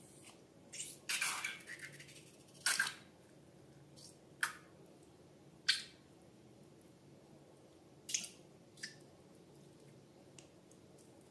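Short, irregular squishing and crackling noises from handling slime and balloons, about seven separate ones, the longest about a second in.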